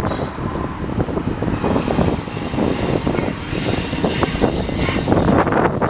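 Double-stack intermodal well cars of a Union Pacific freight train rolling past. Their steel wheels on the rails give a steady rumble with many sharp clicks and clanks.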